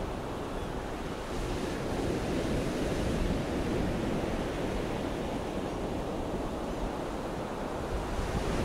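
Atlantic Ocean surf breaking and washing up a sandy beach: a steady rush of water that swells louder about two seconds in.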